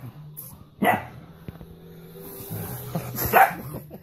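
A dog barking protectively, twice: once about a second in and again near the end, at a person pretending to hurt a baby.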